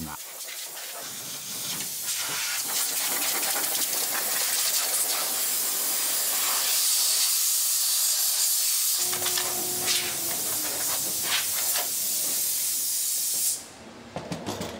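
Compressed-air blow gun hissing steadily as it blows dust out of a train's passenger-door operating mechanism; the hiss cuts off shortly before the end, followed by a few light knocks.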